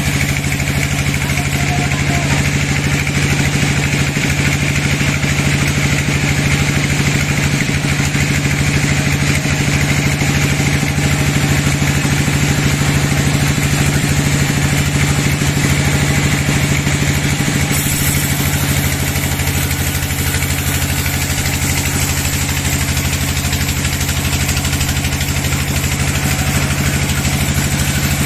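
Sawmill bandsaw machine's engine running steadily with a constant low hum, the higher hiss changing about two-thirds of the way through.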